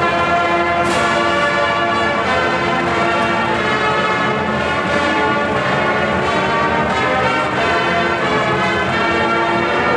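Marching band brass playing slow, sustained chords that change every second or two, with a percussion crash about a second in.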